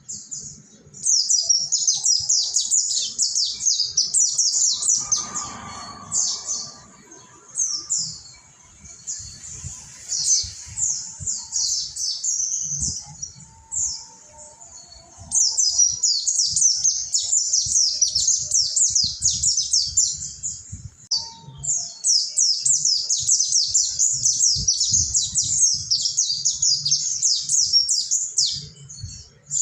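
Mountain white-eye (pleci monty) singing a long, full song: fast runs of rapid, high chirping notes in three long bursts, with shorter phrases in the gaps.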